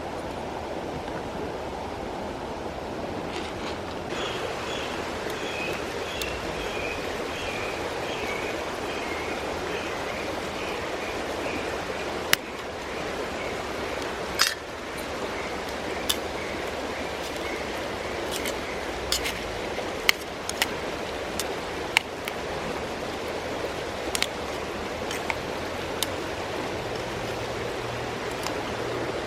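Mountain stream running steadily. A rapid series of high chirps, falling slightly in pitch, runs through the first half, and sharp clicks come every second or two in the second half.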